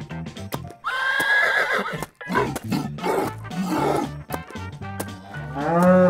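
Cartoon background music with animal sound effects laid over it: a horse whinnying from about a second in, followed by more animal calls.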